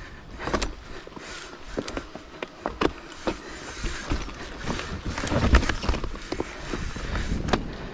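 Hardtail mountain bike riding a dirt trail: tyre noise with frequent short knocks and rattles from the bike, over a low rumble.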